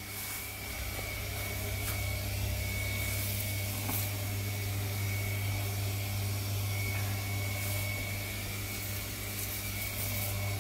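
Electric household water pump with its pressure tank running: a steady motor hum with a thin, high, constant whine above it.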